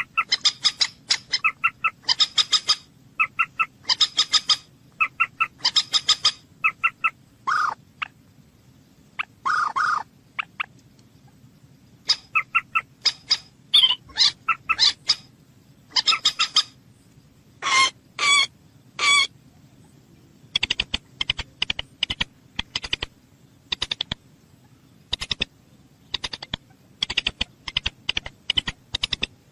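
A bird calling in short, repeated notes, some in quick pairs and some longer and buzzier, changing to a rapid run of sharp clicking calls in the last third, over a steady low hum.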